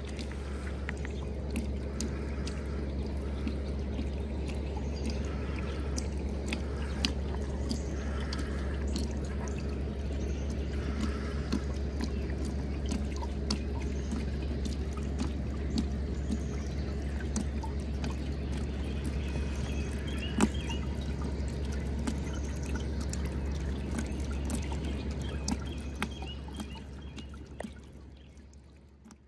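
Small solar-pump water fountain running: water spurting from a straw spout and splashing and trickling onto a plastic plate, with scattered drips and a steady low hum underneath. The sound fades out near the end.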